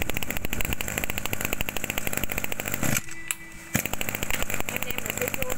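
Small two-stroke brush cutter engine idling with a rapid, even beat. It drops out for under a second about three seconds in, leaving a faint steady hum, then the beat resumes.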